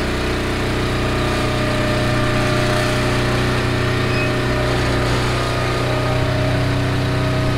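Hydraulic wool press running, its motor and pump giving a steady mechanical hum as the ram ('monkey') pushes fleece into the bale.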